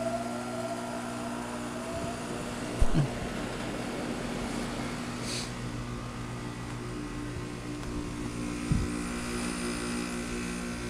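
Heat pump outdoor unit running in defrost mode, its compressor humming steadily, with a tone rising in pitch in the first second or so. Two brief dull thumps come about 3 and 9 seconds in.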